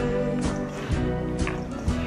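Background song with a steady beat, about two beats a second. A held sung note ends just after the start, and the instruments carry on between vocal lines.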